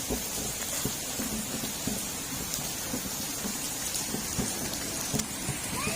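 Heavy rain falling steadily, a continuous hiss with many scattered drops splashing on hard surfaces.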